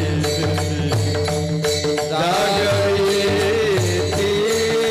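Kirtan devotional music: small hand cymbals (taal) struck in a steady rhythm with a barrel drum (mridang), under a sustained melody that glides upward about two seconds in.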